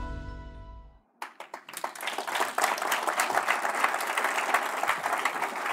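Background music fades out over the first second. It is followed by a few scattered claps that quickly build into steady applause from a large audience.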